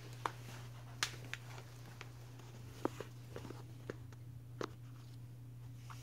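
Soft, irregular clicks and taps, a handful in all, from a puppy and a white-bellied caique play-wrestling and mouthing a toy on a fleece dog bed, over a steady low hum.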